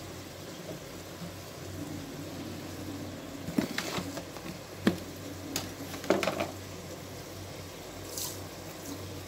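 A few light clinks and knocks on a stainless steel pot of water, mostly in the middle few seconds, over a low steady hum.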